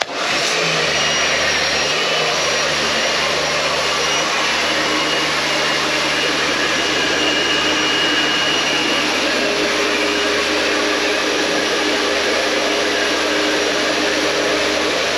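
Kärcher K2 electric pressure washer starting up abruptly and then running steadily, its motor and pump whining under the hiss of the water jet spraying.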